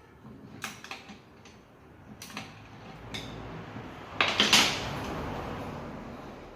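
Metal tools and parts clicking and clinking as they are handled, with a louder cluster of clicks about four seconds in, followed by a rush of noise that fades away.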